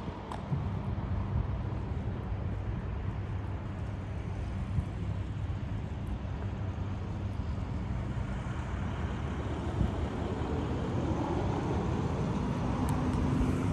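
The Toyota Coaster's 4.2-litre six-cylinder turbo diesel idling with a steady low hum, growing a little louder near the end.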